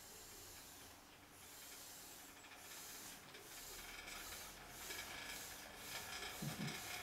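Faint rubbing and scratching of fabric or a hand against the camcorder's microphone. It turns into a regular rasp repeating a few times a second from about two seconds in, with a short low sound near the end.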